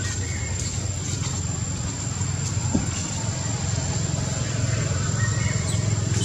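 Steady outdoor background noise: a constant low rumble with a thin, high-pitched whine held on one note, and a few faint short chirps.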